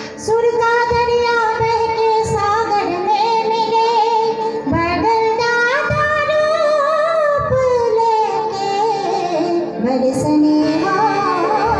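Woman singing a Hindi patriotic song into a microphone, holding long notes with a wavering vibrato. Her line climbs in pitch about halfway through and falls back later.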